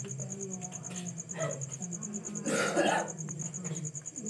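Crickets chirping in a fast, even pulse throughout, under a low background murmur, with one short louder burst of noise about two and a half seconds in.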